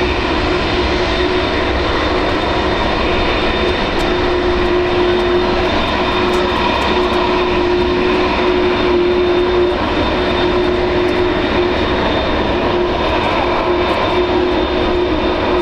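Jet aircraft engines running steadily: a constant rush with a steady whine, neither rising nor falling.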